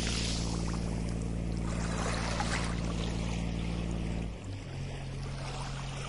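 Shallow ocean water washing gently on a sandy beach, swelling briefly about two seconds in, over a low steady drone whose pitch shifts about four seconds in.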